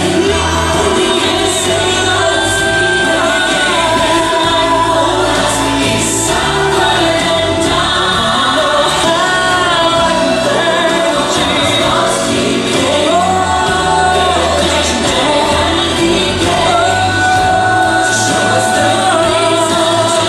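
Music: a worship song with singing voices holding long notes over a full, steady accompaniment.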